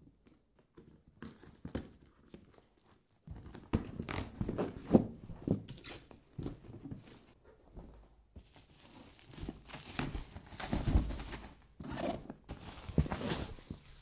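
A cardboard shipping box being torn open by hand, then bubble wrap being pulled off the boxed keyboard. The noise is irregular tearing, rustling and crinkling with occasional knocks, starting about three seconds in.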